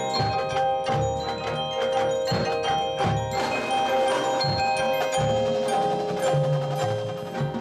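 Marching band music: sustained held chords over busy mallet percussion (chimes, glockenspiel and marimba) and low drum hits.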